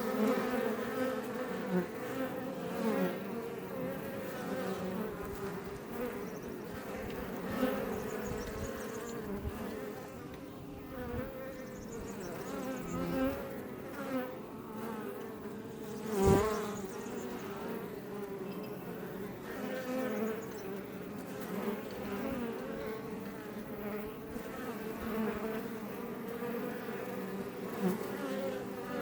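Iberian honey bees buzzing: a steady hum of many wings, with single bees swelling up and fading as they fly close past. The loudest pass comes about halfway through.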